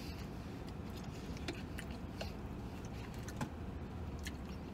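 A man chewing a mouthful of sub sandwich, with scattered soft mouth clicks, the sharpest a little past three seconds in, over a low steady hum of the vehicle cabin.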